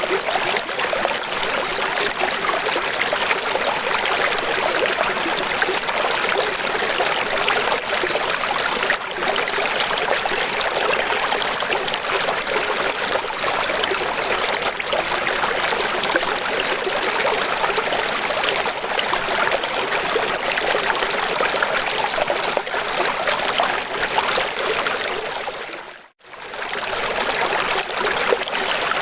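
Steady rush of running water, like a stream or small waterfall. Near the end it fades out to silence for a moment and fades back in.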